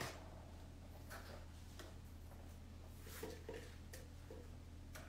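Faint, scattered light taps and clicks of blueberries being picked from a plastic clamshell container and dropped onto cocktails, over a low steady hum.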